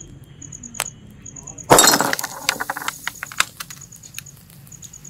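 Glass Mountain Dew bottle wrapped in a red-hot heater element bursting from the heat with a loud sudden crack, followed by a second or two of glass shards clinking, crackling and scattering. A single sharp click comes about a second before the burst, and a faint rapid high ticking runs underneath.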